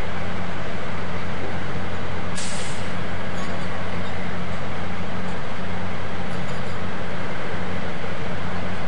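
Heavy diesel engines running steadily with a constant low hum, with a short hiss about two and a half seconds in.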